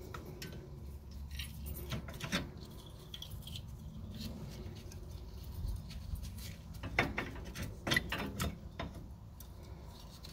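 Light metallic clicks and jingles of small coil retaining springs sliding on a guide wire and knocking against a parking-brake shoe as they are worked onto the retaining pin. The clicks are scattered and irregular, a little louder around two seconds in and twice near the end.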